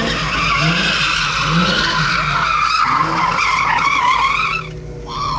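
Car tyres squealing continuously as the car slides in wide circles, its engine running hard underneath. The squeal breaks off briefly near the end, then picks up again.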